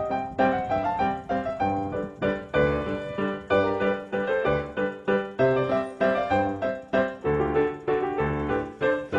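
Piano music: notes and chords struck in a steady rhythm about twice a second over low bass notes, each one fading before the next.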